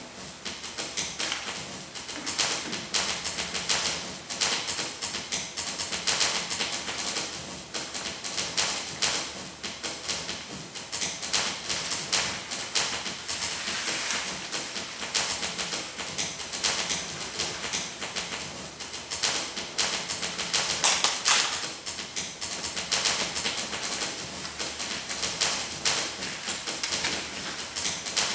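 Paper being rustled and crumpled: a long, irregular run of dry crackles and snaps.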